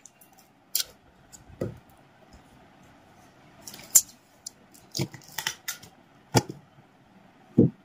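Scattered clicks, taps and knocks from a small cardboard box and a handheld packing-tape dispenser being handled on a desk, as an order is packed into its shipping box.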